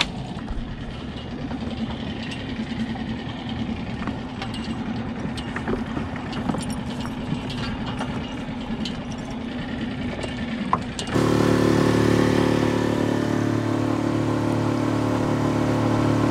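A small boat motor runs steadily, with scattered clicks and knocks over it. About eleven seconds in, the sound changes to a louder, even engine note: the inflatable tender's outboard motor under way.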